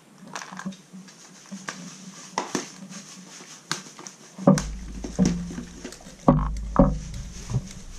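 Clear plastic lure organizer box being handled: scattered light plastic clicks and taps, then several louder knocks and thumps in the second half as it is moved and opened.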